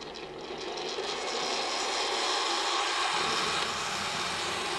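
One-cup hot water dispenser boiling a single cupful and streaming it into a mug: a steady rushing hiss that grows louder over the first second, with a lower rumble joining about three seconds in as the water pours.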